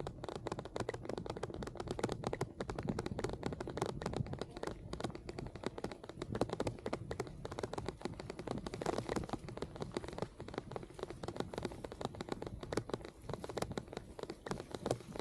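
Raindrops tapping rapidly and irregularly on the camera's microphone, in dense ticks over a low rumble of riding on a wet path.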